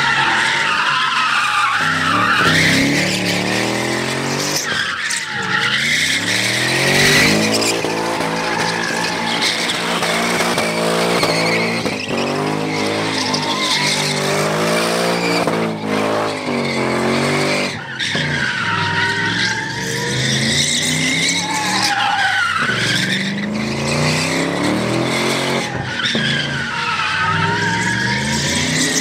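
White Ford Mustang doing donuts, its rear tyres spinning and squealing on the asphalt. The engine revs up and down again and again, and a wavering tyre squeal runs over it throughout.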